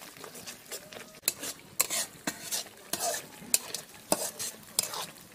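Metal spatula stirring and scraping thick masala paste around a metal kadai, about two scrapes a second, over a faint sizzle of the paste frying in oil.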